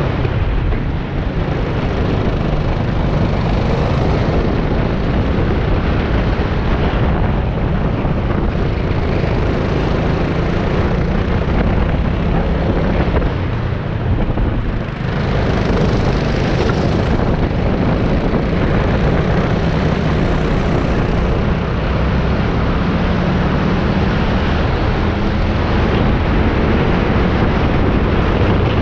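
Racing kart engines running at race pace under heavy wind buffeting on the microphone, a loud steady noise throughout.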